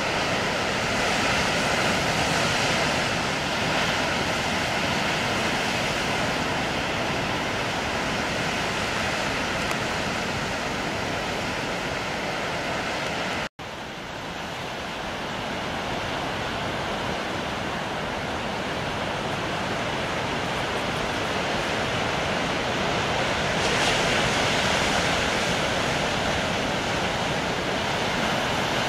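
Steady wash of rough sea surf mixed with wind buffeting the microphone. The sound cuts out abruptly for a moment about halfway through, and a faint steady tone runs under it in the first half.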